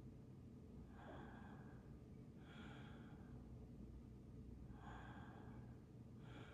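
Faint, calm breathing by a person at rest: about four soft breaths in a row.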